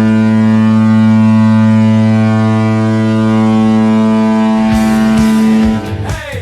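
Ice hockey arena goal horn blowing one long, loud, steady low note, which cuts off near the end as rock music comes in.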